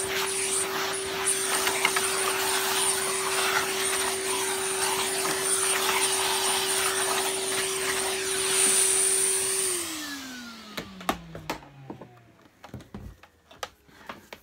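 Vacuum cleaner running steadily with a high whine, switched off about ten seconds in, its motor's pitch falling as it winds down; a few clicks and knocks follow.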